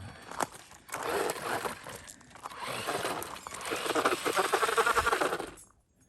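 1/10 scale RC rock crawler's small electric motor and gearbox whirring as it drives over rocks and roots, starting about a second in and cutting off suddenly near the end.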